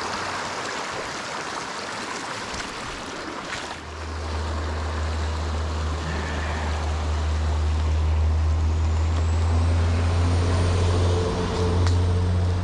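Creek water rushing over rocks, joined about four seconds in by the low, steady rumble of a motor vehicle's engine, which grows louder toward the end.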